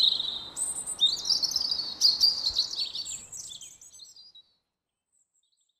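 Birds chirping in quick, high twittering phrases over a soft background hiss, fading out a little after four seconds in.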